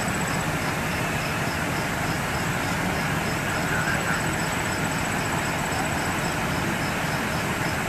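Steady low rumble of an idling vehicle engine, with a faint high chirp repeating about three times a second.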